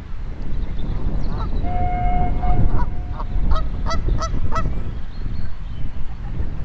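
Canada geese honking: a steady held note about two seconds in, then a quick run of about six honks. A low wind rumble on the microphone runs underneath.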